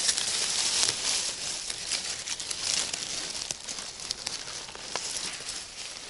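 Dry reed stems and leaf litter rustling and crackling as a hand pushes in among them and pulls a mushroom out; the crackling is densest in the first three seconds or so, then thins out.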